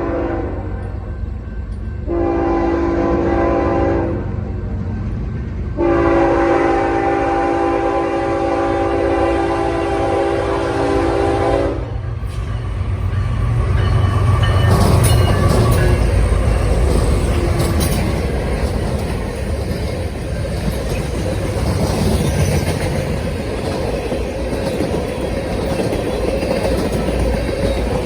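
Diesel freight locomotive horn sounding three blasts: one ending about half a second in, a two-second blast, then a long six-second one. Then a lash-up of four diesel-electric locomotives (ES44AC, SD70ACe, ES44AC, SD60E) passes with a loud engine rumble, followed by the freight cars rolling by with clicking wheels.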